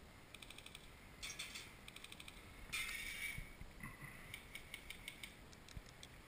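Faint airsoft gun fire: three short full-auto bursts of rapid clicky shots, the loudest about three seconds in, followed by a few scattered single shots.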